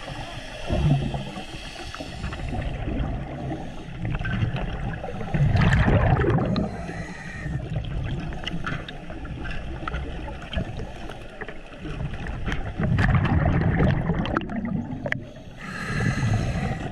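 Underwater sound of a scuba diver's regulator: loud bubbling rumbles of exhaled air in bursts a few seconds apart, over a constant water hiss with small clicks.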